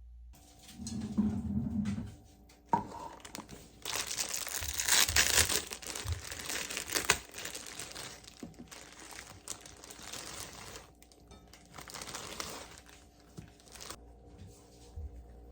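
Irregular rustling and crinkling of something being handled, loudest for a few seconds in the middle and then trailing off into softer rustles, with a sharp click near the start.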